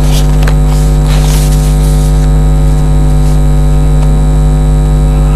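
Loud, steady electrical mains hum and buzz with hiss on the broadcast audio track.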